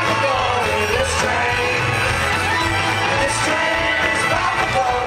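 Live band music with singing over a steady bass line.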